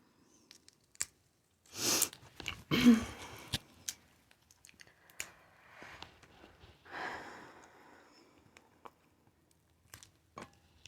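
A person eating seafood boil: chewing and mouth sounds, with short breathy bursts about two and three seconds in and again about seven seconds in, and scattered small clicks.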